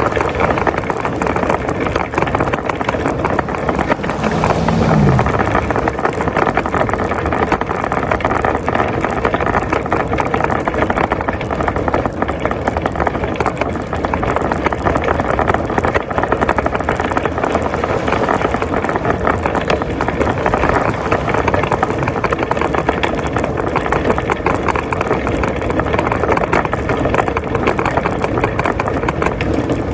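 Shopping cart being pushed along pavement, its wheels and wire basket rattling steadily.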